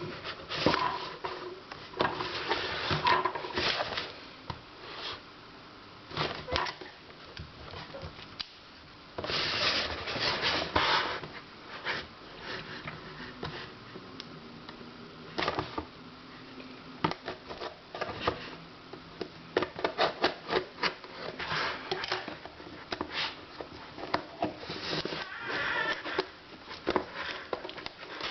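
Mobile phone box and packaging being handled during an unboxing: irregular rustling and rubbing, with many sharp taps and clicks.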